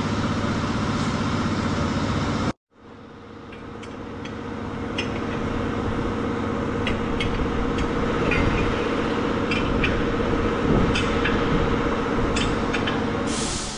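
A steady engine-like hum cuts off abruptly about two and a half seconds in. After a moment of silence, a steady workshop hum with a held tone fades up, broken by scattered short metallic clicks as steel pipe-clamp hardware is handled.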